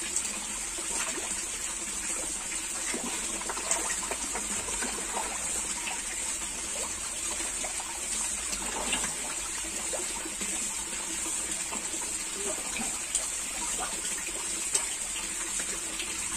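Koi pond water running steadily, with small splashes and clicks scattered throughout as koi feed at the surface.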